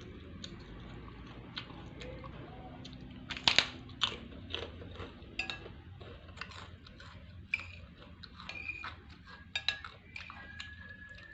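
Close-up mukbang eating sounds: a person chewing mouthfuls of nasi rawon (rice and beef in black rawon soup), with many sharp clicks. The loudest click comes about three and a half seconds in, and several later clicks ring briefly.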